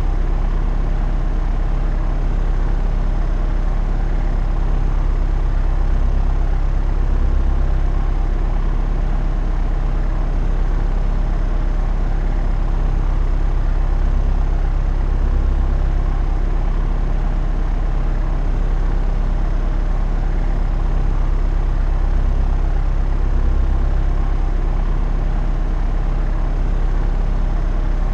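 Propeller airplane in flight: the engine and propeller drone steadily as a low, even hum that swells slightly every several seconds.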